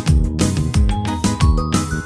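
Upbeat background music with a steady beat and bright, plucked-sounding melody notes.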